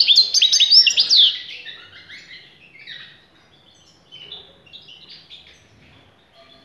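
European goldfinch singing: a loud run of quick, sharp notes for the first second or so, then softer twittering phrases.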